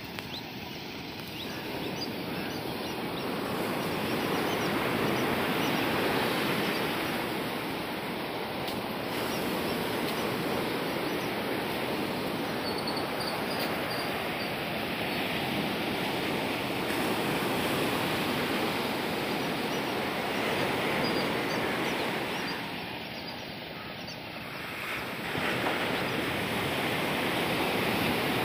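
Ocean surf breaking and washing up a sandy beach, a steady rush that swells and eases, with a brief lull a few seconds before the end.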